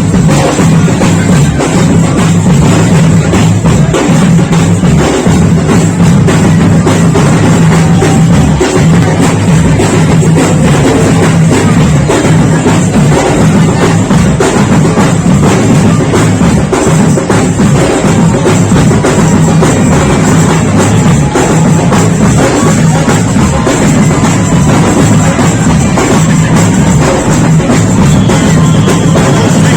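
Marching band music with loud, continuous drumming from bass drum and snare.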